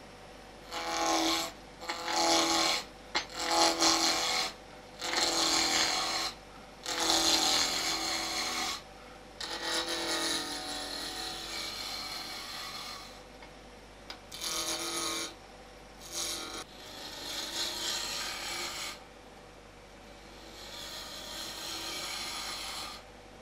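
A high-speed-steel spindle roughing gouge cuts a wooden spindle blank spinning on a wood lathe at about 2,500 rpm. The cuts come as repeated passes of one to two seconds with short breaks between them, closely spaced at first and more spread out later.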